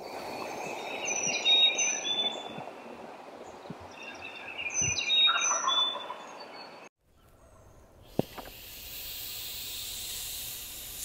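A wild turkey gobbler gobbling twice, a few seconds apart, with songbirds chirping. After a break about seven seconds in, a steady hiss of air with a sharp click just after eight seconds, as the Avian-X hen decoy is filled with air.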